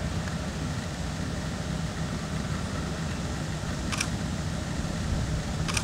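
A steady low rumble of background noise, with two short sharp clicks about a second and a half apart near the end.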